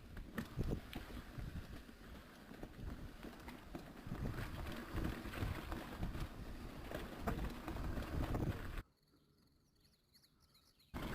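Mountain bike rattling and clattering over a rough downhill trail, with a steady low rumble and many quick knocks, getting busier about four seconds in. Near the end it cuts to near silence for about two seconds.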